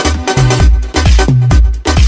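Electronic dance-pop track in an instrumental stretch: a steady, heavy kick-drum and bass beat about twice a second under synth layers.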